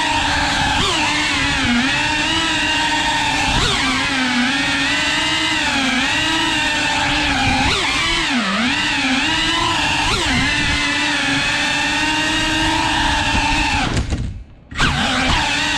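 FPV quadcopter's brushless motors and propellers whining, the pitch rising and falling with the throttle. The sound cuts out briefly about fourteen seconds in, then comes back sharply.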